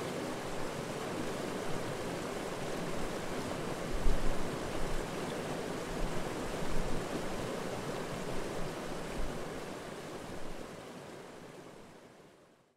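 Mountain stream rushing steadily over rocks and small rapids, with a few low thumps, the loudest about four seconds in. The sound fades out over the last two seconds.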